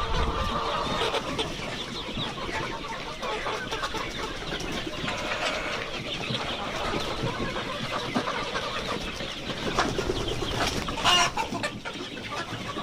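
A flock of desi (native-breed) chickens clucking and calling over one another without a break, with one louder squawk about eleven seconds in.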